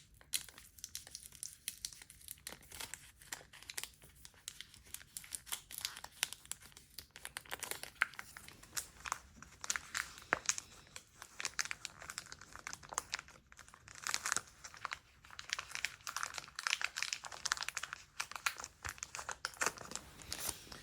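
Foil wrapper of a Pokémon TCG booster pack crinkling and tearing as it is worked open by hand; the pack is very tight. A long run of quick crackles, sparse at first, then denser and louder from about eight seconds in.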